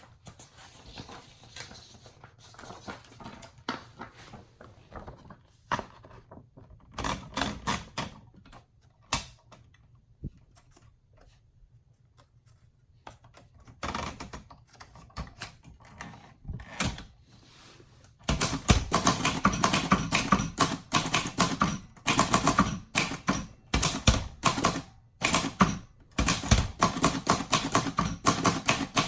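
Royal Signet portable manual typewriter: soft mechanical handling noises at first, then scattered key strikes in short runs. About two-thirds of the way in it breaks into steady fast typing, the type bars striking the platen several times a second, much louder.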